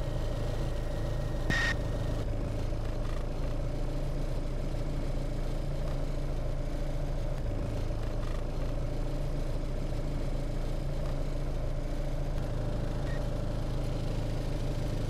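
Cessna 182's single piston engine idling at low power while taxiing, a steady drone heard inside the cabin, with the propeller turning slowly. A short beep sounds about a second and a half in.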